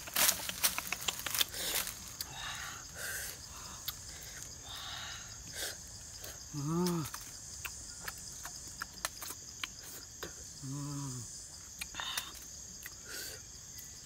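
Rainforest insects droning steadily at a high pitch, with scattered clicks and taps. Twice, about four seconds apart, a short low call rises and falls in pitch.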